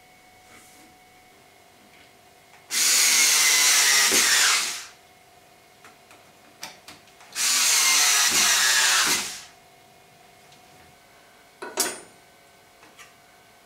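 Cordless drill-driver driving screws to mount a magnetic knife strip: two runs of about two seconds each, the motor's whine dropping in pitch during each run. Near the end comes a sharp metallic click as a kitchen knife is set onto the magnetic strip.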